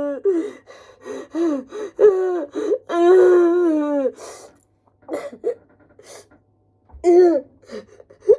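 A woman sobbing hard without words: drawn-out, wavering wailing cries broken by sharp gasping breaths, with a last short wail near the end.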